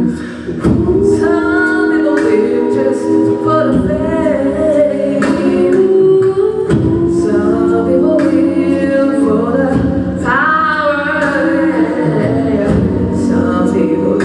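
A cappella group singing: a woman's lead voice over backing singers, all on microphones.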